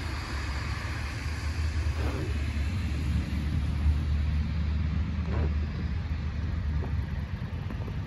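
Road traffic on a wet, slushy street: a pickup truck drives past with a low rumble and tyre hiss, loudest about halfway through and then fading.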